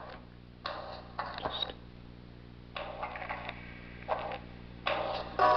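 Music playing from an iPhone 4's built-in downward-facing speaker at half volume, off the stand. It comes in thin, bass-less snatches, then turns louder with clear sustained notes near the end.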